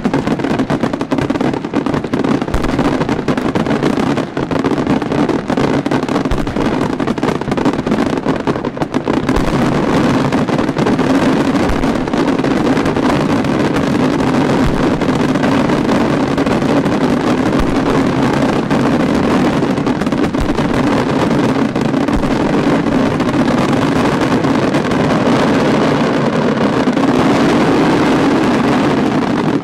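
Aerial fireworks in a dense barrage: shell bursts and launches follow so closely that they merge into one continuous loud roar with no gaps.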